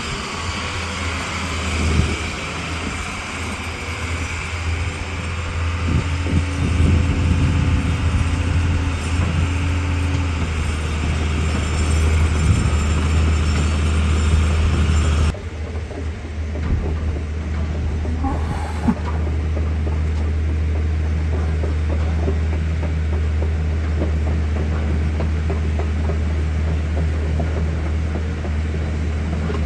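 A vehicle engine running steadily with a low drone. About halfway through, the higher hiss and rattle drop away suddenly while the drone carries on.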